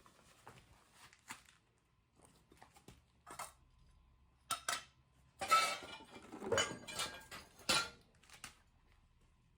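Loose metal motorcycle parts and tools being handled on a workbench: scattered clicks, then a flurry of clinks and clatters in the second half, a few of them ringing briefly.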